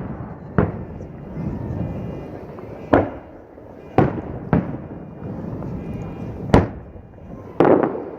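Aerial fireworks shells bursting: about six sharp booms at irregular intervals, the last one near the end drawn out longer.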